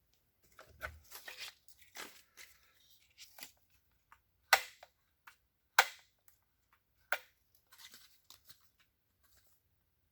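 Packaging being handled: rustling and tearing of paper or plastic, with three sharp clacks about a second and a quarter apart midway through.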